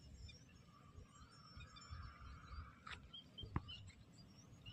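Near silence: a faint low rumble with scattered faint bird chirps and a couple of single clicks about three seconds in.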